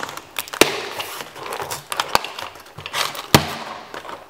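Plastic blister pack on a cardboard backing card being pulled open by hand: crackling and crinkling plastic with many clicks and a few sharp snaps, the loudest about half a second, two seconds and three and a half seconds in.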